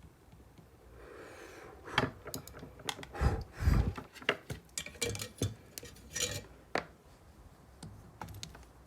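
Light metallic clinks, taps and clatter of tools and small metal parts handled on a workbench, a string of separate knocks over several seconds after a short faint hiss.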